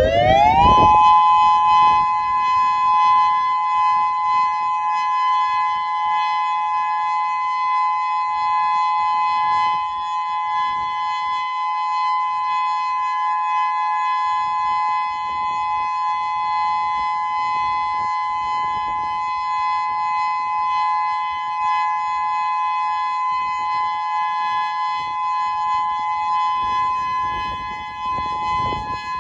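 Federal Signal Modulator II 6024B electronic siren sounding its steady alert signal: it sweeps up in pitch over the first second, then holds a loud, unwavering chord of two close tones.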